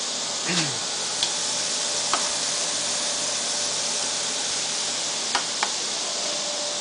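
Chicken sizzling on a barbecue grill: a steady hiss with a few sharp pops and crackles from the fat.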